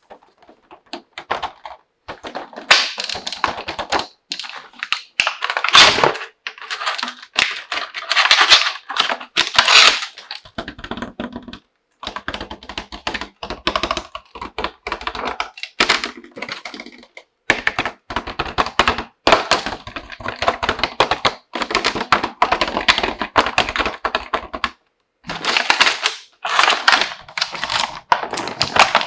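Hands unpacking a plastic toy tea set: packaging crackling and small plastic pieces clicking and tapping against each other, in clusters with short pauses.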